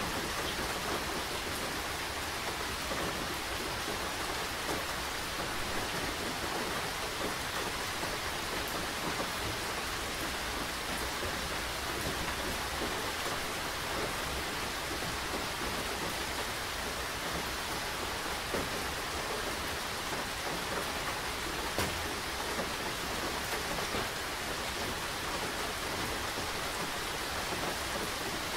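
Steady rainfall: an even hiss of rain on surfaces, dotted with individual drop hits, two of them a little sharper about two-thirds of the way through.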